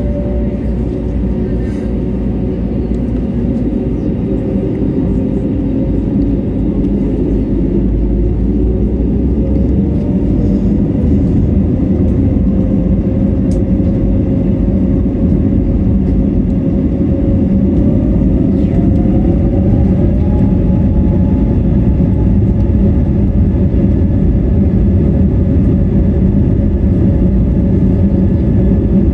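Airbus A320neo's Pratt & Whitney PW1100G geared turbofan engines heard from inside the cabin while the aircraft is on the ground, a steady rumble and hum. The engine tone rises in pitch and grows slightly louder about eight seconds in and again near the twenty-second mark as thrust is added.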